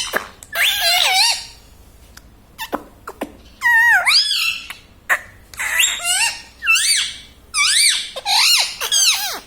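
Pet Indian ringneck parrot vocalizing in a string of short, high calls that glide up and down in pitch, roughly one a second.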